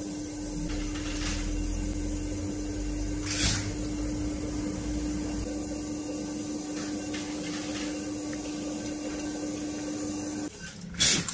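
Electric potter's wheel running with a steady hum while a metal trimming tool scrapes clay shavings from the foot of a leather-hard bowl. The hum stops about ten seconds in, followed by a short loud noise.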